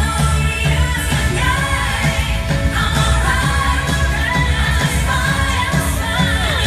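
Loud pop music with a singing voice and a steady bass beat.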